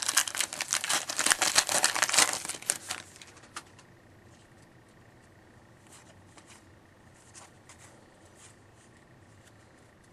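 Wrapper of a pack of 2013-14 O-Pee-Chee hockey cards being torn open and crinkled, a dense crackle for about the first three seconds; after that only a few faint ticks.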